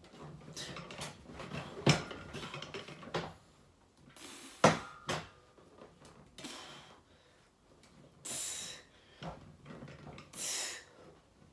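Strained, forceful exhales during slow leg extensions on a home weight bench, with two sharp clanks from the machine near the start.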